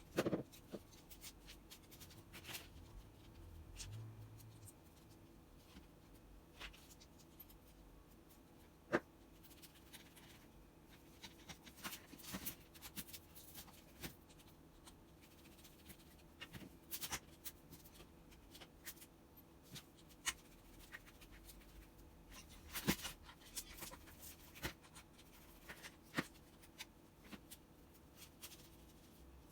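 Faint, scattered clicks and light taps of hand tools and small parts being handled while a Makita HR3520 hammer drill is taken apart for a switch replacement, with a few sharper knocks.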